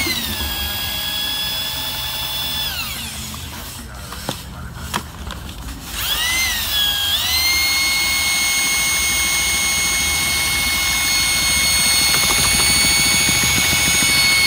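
Electric paddle mixer churning smooth-finish stucco in a five-gallon bucket, the motor giving a steady whine. About three seconds in it winds down and stops, with a couple of knocks during the pause. It spins back up about six seconds in and runs steadily.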